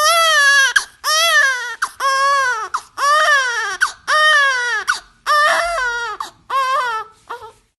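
A baby crying: a run of about eight short wailing cries, roughly one a second, each rising and then falling in pitch.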